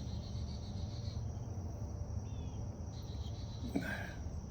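Quiet outdoor background: faint insect trilling over a low steady hum, with a brief chirp near the end.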